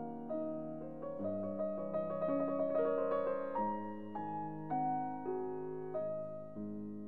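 Background piano music: single notes and chords that change about every half second, with a quicker run of notes in the middle.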